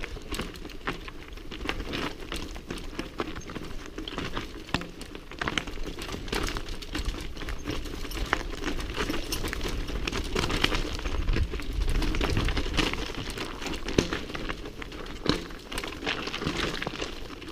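Mountain bike rolling fast down a loose rocky trail: tyres crunching over stones while the bike rattles in constant sharp clicks and knocks, over a low rumble.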